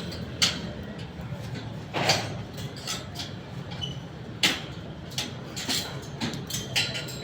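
Scattered sharp knocks and clacks from construction work, irregularly spaced about a second or more apart, over a steady low hum.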